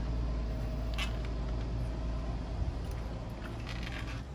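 Electric pet clippers running with a steady low hum while shearing a long, matted dog coat, with a few light clicks near the end.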